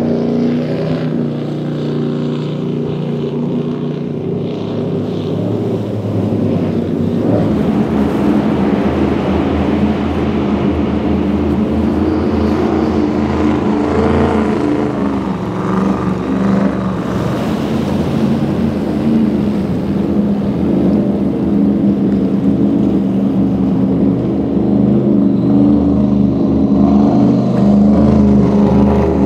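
Offshore racing powerboats running at high speed: a loud, deep engine drone of several steady layered tones over the hiss of spray. The engine note changes about a quarter of the way in and bends briefly near the middle.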